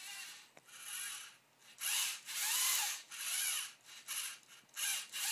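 A balancing robot's small electric drive motors whirring in short bursts, about one or two a second. Each burst's whine rises and falls in pitch as the motors speed up and slow down to keep the robot balanced. The bursts get louder from about two seconds in.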